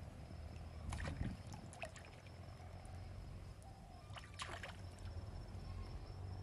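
Soft sloshing and splashing of pond water where people are wading and fishing, with clusters of sharp splashes about a second in and again a little past four seconds, over a thin steady high whine.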